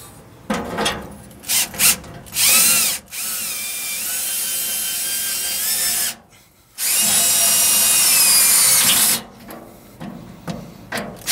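Cordless drill/driver with a socket on it, run in a few short bursts and then two long steady runs with a brief pause between; the motor whine rises as it spins up. The socket fitted turns out to be the wrong size for the mounting bolt.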